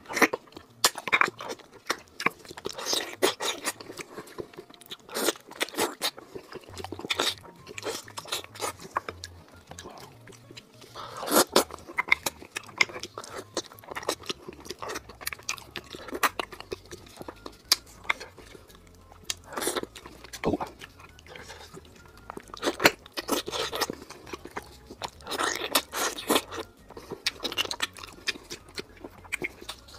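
Close-miked mukbang eating of braised trotters: wet chewing, lip smacks and sucking as meat and skin are bitten off the bones, in irregular sharp bursts.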